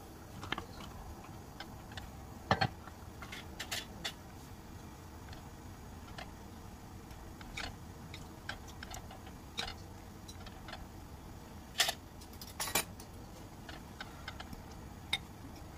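Metal fork tapping and clinking against an earthenware pot as boiling tteokbokki is stirred and the rice cakes are separated: light, irregular clicks over a low steady hiss, with louder clacks about two and a half seconds in and again around twelve seconds.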